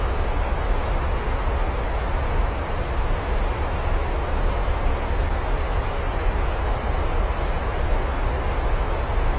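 Steady rain falling: an even hiss with a low rumble underneath, unchanging throughout.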